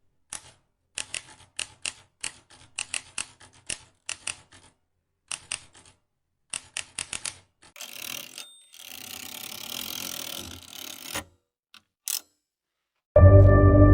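Sharp mechanical clicks in irregular clusters for about seven seconds, then a few seconds of hissing noise and one more click. Ambient music comes in near the end.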